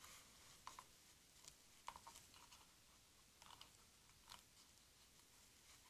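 Near silence with a few faint, scattered clicks and light taps of something being handled.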